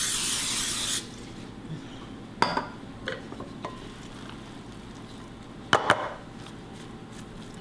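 Aerosol cooking spray hissing for about a second as it coats a glass baking dish, then a few separate knocks of a wooden spoon against a glass mixing bowl.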